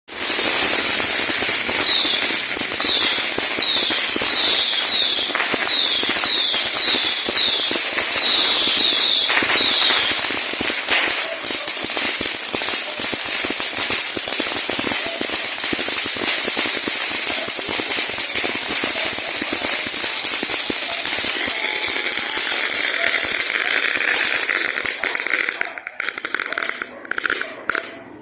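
A long string of firecrackers going off in a rapid continuous crackle of pops, thinning out and stopping near the end. Short falling whistles sound over it about twice a second during the first ten seconds or so.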